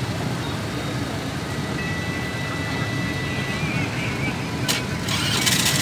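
Freight train of tank cars rolling slowly past a level crossing: a steady low rumble of wheels on the track, with a thin steady high tone coming and going. Near the end a sharp click, then a short hiss.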